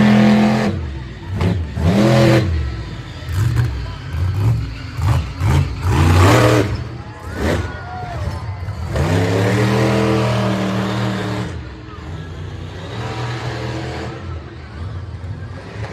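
Monster truck engine revving hard in repeated surges: short stabs of throttle, several quick blips in a row, then one long held rev about nine seconds in before it settles lower.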